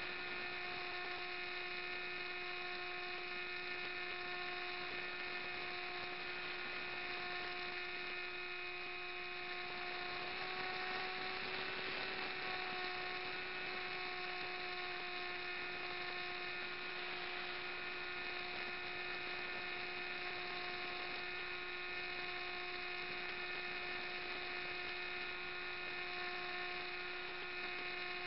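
Model aircraft motor and propeller running with a steady whine, heard from a camera mounted on the wing. About ten seconds in the pitch steps up slightly and a rush of air rises, easing back a few seconds later.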